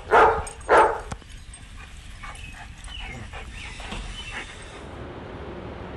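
A dog barks twice in quick succession in the first second, then only fainter yips and play sounds follow.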